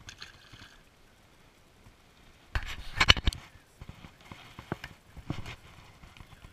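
A burst of hollow knocks and clatter about two and a half seconds in, then a few scattered clicks and taps, from fishing tackle being handled in a small boat.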